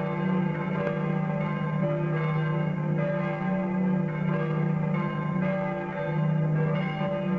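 Bells pealing: several bells struck one after another in a steady succession, their ringing tones overlapping.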